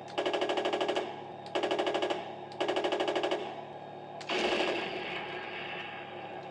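Three short bursts of machine-gun fire from the RC Tiger tank's sound unit, each a rapid run of evenly spaced shots, followed from about four seconds in by a steadier mechanical noise.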